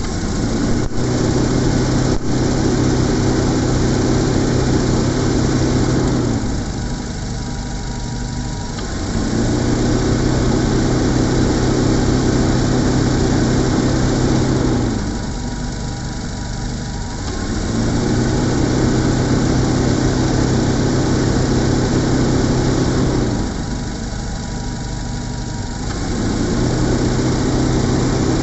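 A motor-driven machine humming steadily. About every eight and a half seconds it eases off for two to three seconds and then picks up again, in a regular repeating cycle.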